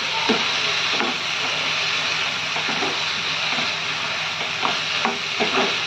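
Onion-tomato masala sizzling in oil in a pan while a spoon stirs soya chunks through it, with short scrapes of the spoon against the pan over a steady frying hiss.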